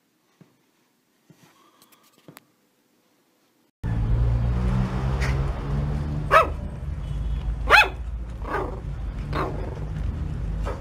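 Shih Tzu puppy giving about five short, high-pitched yapping barks a second or so apart, over a steady low background hum. Before them, for the first few seconds, there is near quiet with a few faint rustles.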